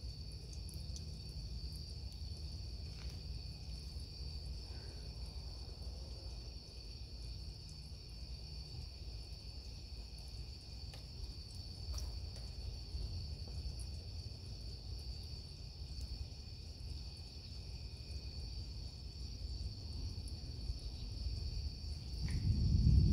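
Steady night chorus of crickets trilling on one high pitch, over a faint low rumble. About a second before the end, a loud low rumble of thunder rolls in.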